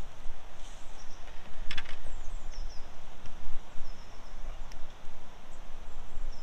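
Outdoor wind rumbling on the microphone, with small birds chirping in short descending notes several times over it. A brief clatter of handling comes about two seconds in.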